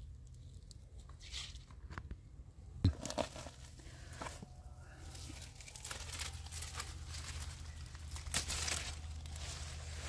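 Grapevine leaves and stems rustling and crackling as dark grape bunches are picked by hand, with scattered sharp snaps, the loudest about three seconds in, over a steady low rumble.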